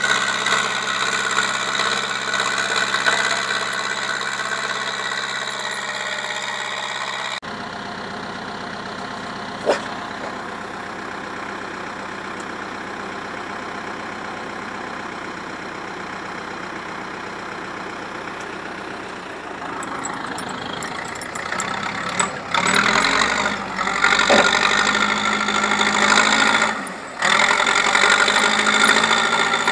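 Zetor 7211 tractor's diesel engine running steadily while pushing snow with a rear-mounted blade. It grows louder in the last several seconds, and the level jumps abruptly a few times. A single short sharp knock comes about ten seconds in.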